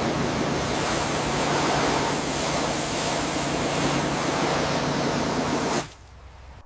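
Steady loud rushing hiss over a low machine hum, stopping abruptly near the end.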